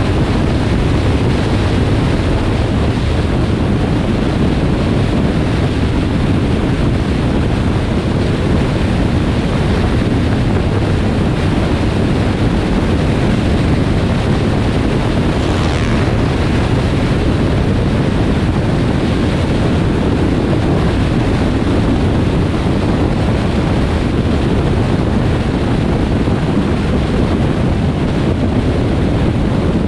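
Steady road and wind noise of a car driving along a highway, with a brief brighter hiss about sixteen seconds in.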